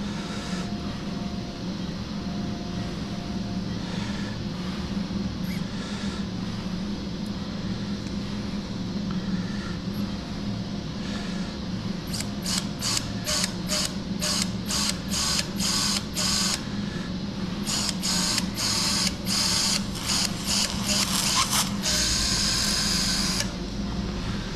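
Orthopaedic power drill boring across a greyhound's tarsal bones through a drill guide, the pilot hole for a 2.4 mm positional screw. It runs in many short bursts, about two or three a second, from about halfway in, then in one longer run that cuts off shortly before the end.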